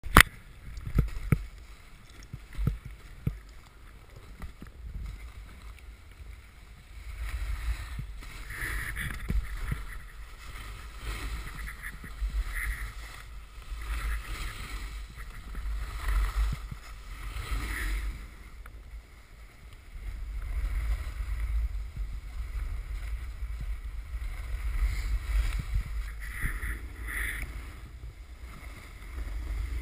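Wind rushing over an action camera's microphone and the scrape of sliding down packed snow, swelling and fading in waves, after a few knocks in the first few seconds.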